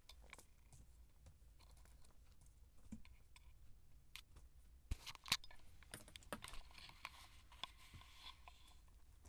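Faint scattered clicks and scratchy rustles of two Siamese kittens scuffling and batting balls on a blanket, with a couple of sharper knocks about five seconds in.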